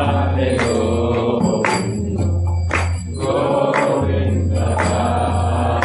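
Devotional chant music: voices singing over a steady low drone, with a sharp percussive strike about once a second.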